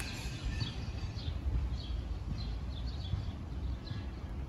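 Small birds chirping: short, high, falling chirps repeating irregularly about twice a second, over a low steady rumble.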